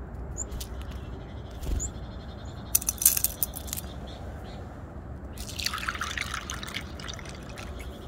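Sunflower seeds and peanuts dropped by hand into a small bowl, a quick patter of sharp clicks about three seconds in, then a burst of rustling handling about five and a half seconds in. A couple of faint high chirps near the start.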